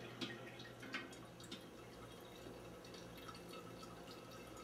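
Cold brew coffee dripping faintly through a paper filter into a glass pitcher, with a couple of light clicks in the first second or so.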